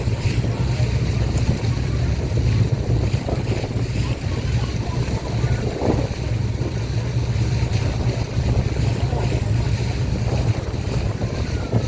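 Boat engine running steadily as a constant low hum, with the rush of water and wind over the boat underway.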